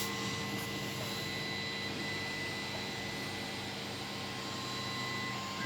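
Vacuum cleaner motor running steadily on a 24 V power supply: an even whooshing hiss with a constant whine.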